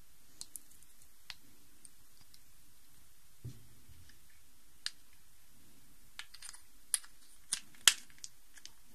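Plastic 3x3x3 Rubik's cube pieces clicking as they are fitted back into the cube, its pieces soaped to make it turn faster. A few scattered single clicks at first, then a quicker run of clicks near the end, the loudest about eight seconds in.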